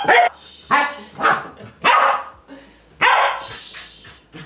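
Pembroke Welsh Corgi barking in excitement: about five loud, sharp barks spread over a few seconds.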